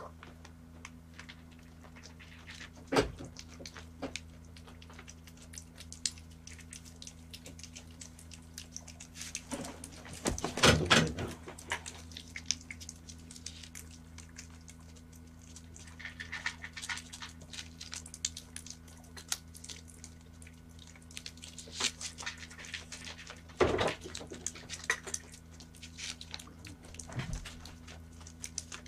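A cat licking a lickable paste treat from a hand-held squeeze pouch: fast, fine, wet licking clicks, with a few louder rustles or knocks, the loudest about ten seconds in, over a steady low hum.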